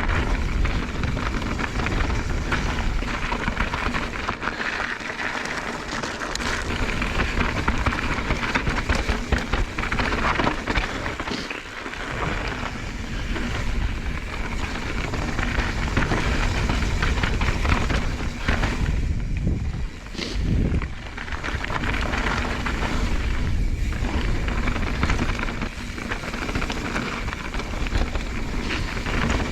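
Mountain bike freewheeling down a fast dirt trail: tyres rolling and crunching over the ground and the bike rattling, with wind rushing over the microphone.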